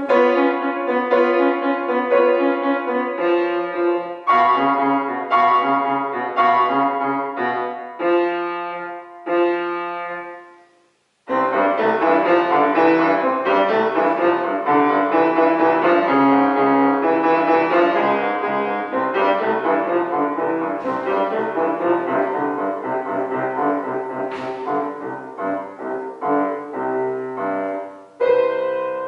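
Grand piano played solo by a child: quick runs of notes, a pause of about a second roughly a third of the way in, then busier playing, with a loud chord struck near the end.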